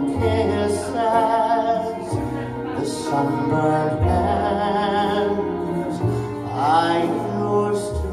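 A man singing live into a handheld microphone, amplified through PA speakers, over an instrumental backing with a steady bass line and regular cymbal beats. About six and a half seconds in his voice slides up in pitch.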